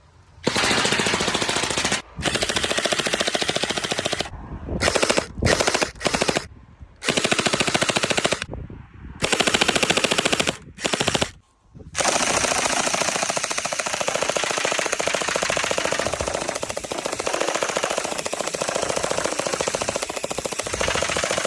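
Electric gel blaster firing on full auto in rapid bursts. There are several bursts a second or two long with short breaks, then one long unbroken stream of fire for the second half.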